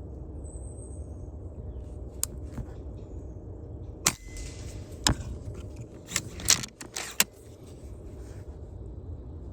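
A series of sharp clicks and knocks, several of them close together near the middle, over a steady low rumble.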